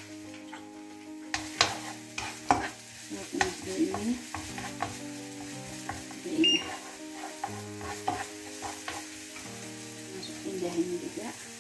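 Minced garlic sizzling lightly in hot oil in a nonstick wok while a nylon slotted spatula stirs it, with several sharp taps and clicks of the spatula against the pan and a few bouts of scraping.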